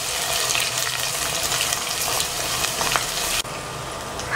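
Sliced onions sizzling in hot oil in a nonstick pot, stirred with a wooden spatula. The sizzle drops suddenly to a quieter hiss about three and a half seconds in.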